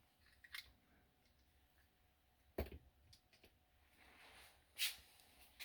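Near silence broken by a few faint clicks and taps, the sharpest about two and a half seconds in and another near five seconds.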